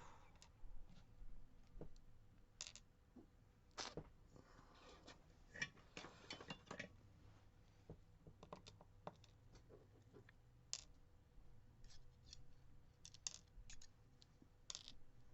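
Faint scattered clicks and short light scrapes of small metal lock parts and tools being handled as an Assa D12 lock is taken apart.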